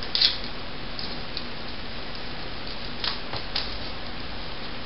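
A few short clicks and rustles from a belt buckle and clothing as a belt is pulled tighter and fastened, the sharpest just after the start, over a steady hiss.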